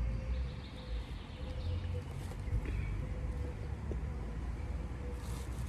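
Outdoor ambience: an uneven low rumble with a faint, wavering hum, and a brief rustle near the end.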